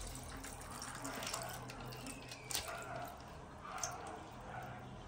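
Milk poured in a thin stream from a plastic pouch into a nonstick kadhai already full of milk: a faint, steady trickle and splash. Two brief clicks come past the middle.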